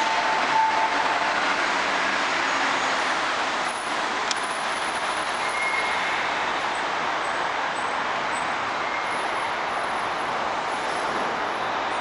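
Osaka Monorail 1000 series straddle-type monorail train coming to a stop at the platform, with a steady mechanical noise of the train as it slows and stands. A faint tone near the start fades away, and there is a short click about four seconds in.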